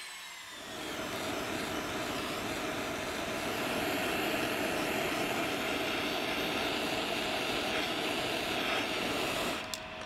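Jeweller's soldering torch flame running with a steady hiss while it heats a small silver piece to flow solder. The hiss starts about half a second in and cuts off sharply near the end when the torch is shut off.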